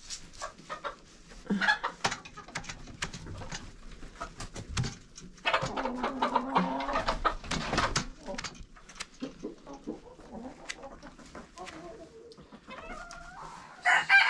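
Chickens clucking in a coop, with scattered clicks and scrapes throughout. A longer stretch of calling comes in the middle, and near the end a rooster starts crowing loudly.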